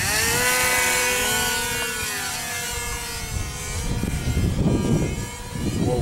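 Hobbyzone Delta Ray RC plane's electric motor and propeller spooling up to full throttle for takeoff: a whine that rises sharply at first, then holds and gradually fades as the plane climbs away. Wind buffets the microphone in the second half.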